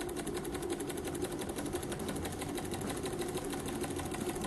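Small Stirling engine running steadily with a fast, even ticking rhythm, turning a generator made from a PC case fan.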